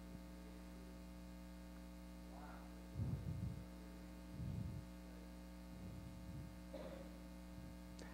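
Steady electrical mains hum in the sound system, with a faint, distant voice from the audience speaking a few short phrases away from the microphone.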